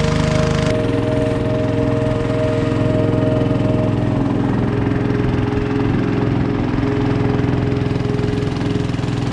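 Small engine running steadily with a fast, even pulse. Under a second in, a high hiss drops away.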